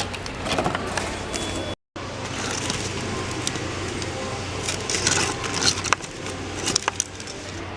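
Shop ambience: a steady low hum, with scattered clicks and crackling rustles from items and the camera being handled. The sound cuts out completely for a moment just before two seconds in.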